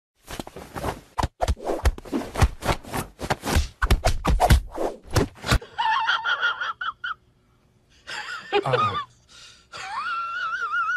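A rapid clatter of knocks and scrapes for about five seconds. Then, after a break, a cat's drawn-out, wavering meows, the last one long and held.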